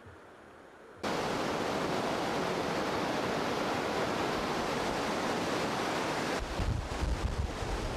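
Swollen, fast-flowing floodwater river rushing in a steady loud hiss, starting abruptly about a second in after a quieter first second. From about six seconds, wind buffets the microphone with low rumbling gusts.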